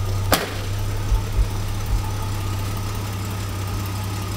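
Car engine idling with a steady low hum and one sharp click about a third of a second in.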